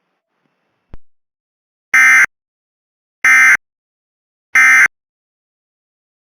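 Emergency Alert System end-of-message signal: three identical short, loud, buzzy SAME data bursts about a second apart, the digital code that closes the tornado warning. A single click comes about a second before them.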